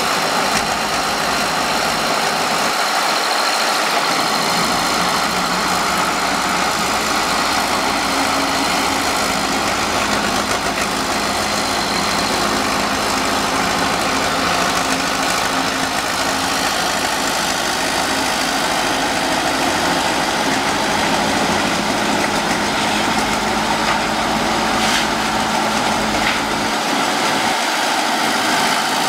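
Diesel engine of a 1959 Menck M60 cable excavator running steadily while the machine works its clamshell grab.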